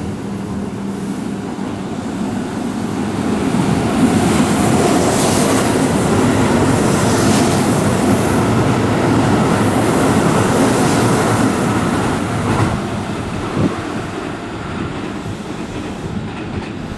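Keihan 3000-series electric train passing through a station at speed without stopping. The rush of wheel and air noise builds over the first few seconds, stays loud for about eight seconds as the cars go by, with clatter over the rail joints, then fades.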